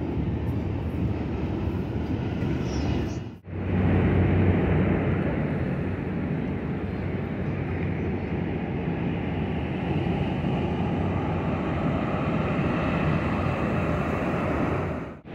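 Steady outdoor city ambience: a continuous rumble like distant traffic or a passing aircraft. It cuts out briefly about three and a half seconds in, then carries on.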